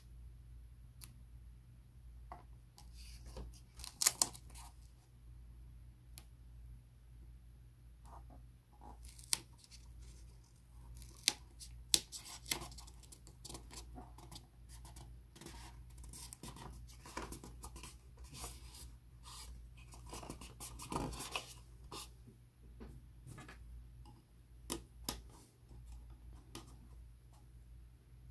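Fingers handling and pressing a clear plastic sticker onto a plastic model cup: scattered small clicks, taps and short rustles, a few of them sharp, with brief flurries of handling about four seconds in and again around twelve and twenty-one seconds.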